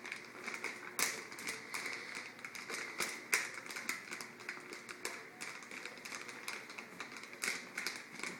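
German shorthaired pointer crunching pretzels with its head inside a plastic pretzel bag. There are irregular crunches and crinkling from the bag, with a few louder crunches about a second in, around the middle and near the end.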